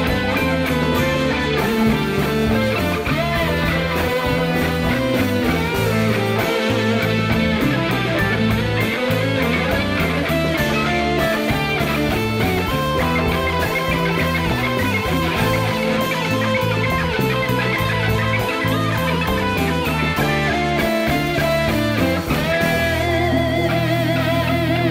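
Rock band playing an instrumental passage with no vocals: electric guitar to the fore over drums and keyboard.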